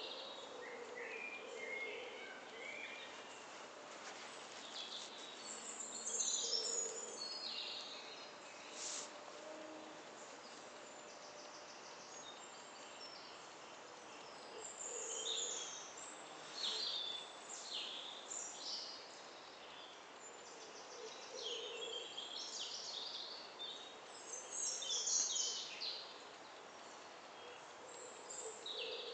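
Woodland birdsong: several small birds chirping and singing in short high phrases scattered throughout, over a steady faint hiss, with a softer, lower call now and then.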